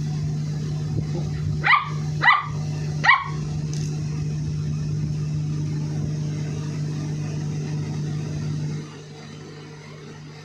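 Yellow Labrador puppy about eight weeks old giving three short, high-pitched barks less than a second apart a couple of seconds in, as it is teased with a stick. A steady low hum runs underneath and cuts off near the end.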